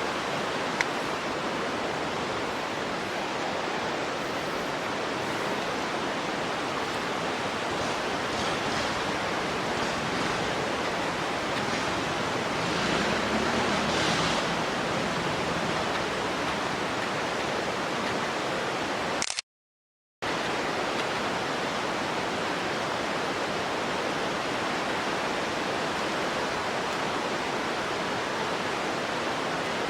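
Steady rushing noise spread evenly across all pitches, like fast-moving water, broken once by a short drop to dead silence about twenty seconds in.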